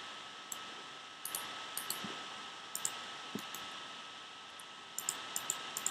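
Scattered sharp clicks of a computer mouse, a few single and some in quick little runs, over a steady hiss with a faint high steady tone.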